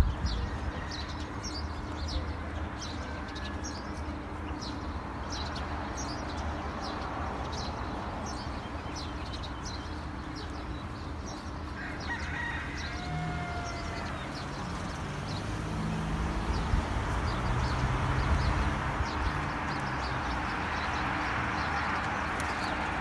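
Small birds chirping in many short calls, with a rooster crowing about twelve seconds in, over a steady low hum of traffic.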